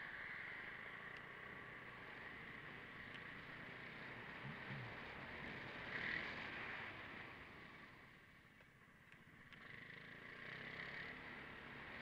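Vespa GTS 300 scooter on the move, its single-cylinder engine and the wind and road noise heard faint and muffled through the microphone of the camera mounted on it. The noise drops away for a moment about eight seconds in, then comes back.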